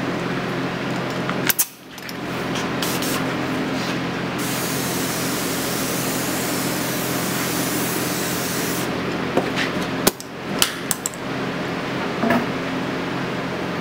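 Spray gun misting activator onto hydrographic film floating on the dip-tank water: a steady hiss lasting about four and a half seconds, starting about four seconds in. A few sharp clicks come before and after it, over a steady hum.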